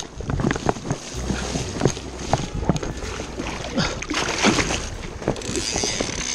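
Wader-clad legs sloshing and splashing through shallow river water, with small knocks of stones underfoot. Wind rumbles on the microphone from about a second in until near the end.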